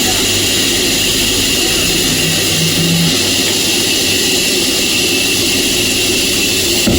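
Sawmill machinery running with a loud, steady mechanical noise and a low hum. A brief knock comes right at the end.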